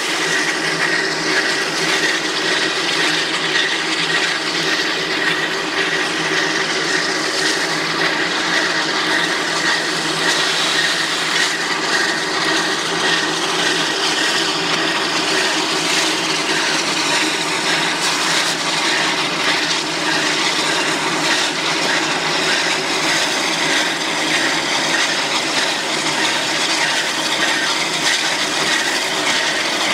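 Narrow-gauge steam locomotive No. 168, a 4-6-0 ten-wheeler, moving slowly with its passenger train: a steady hiss with a faint high ring and no distinct exhaust beats.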